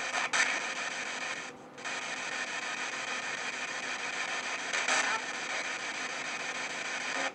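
P-SB7 spirit box radio sweeping through stations: a steady hiss of static with brief louder bursts of chopped broadcast fragments, and a short dropout about one and a half seconds in.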